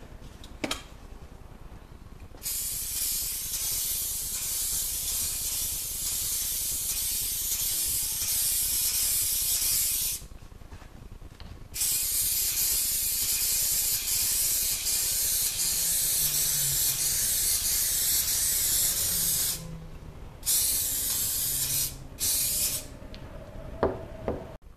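Aerosol spray can hissing in long bursts: two sprays of about seven to eight seconds each, then two short ones. Near the end come a couple of sharp clicks as the can is set down.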